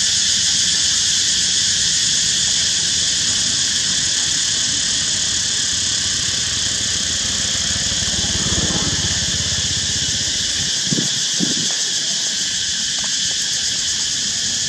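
Chorus of insects making a steady, high-pitched drone without a break, in several overlapping bands.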